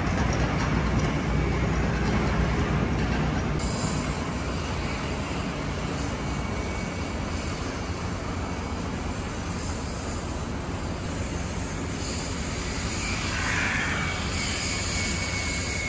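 Steady outdoor rumble of trains and road traffic beside a busy railway station, with a faint high-pitched wheel squeal toward the end.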